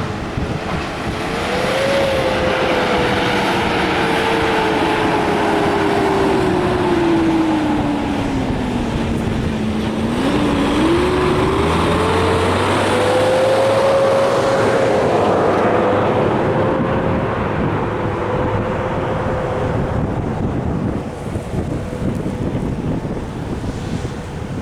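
New Holland CR8.90 combine harvester running, a steady machine din with a whine. The whine slowly sinks to about half its pitch over several seconds, climbs back quickly and then holds steady.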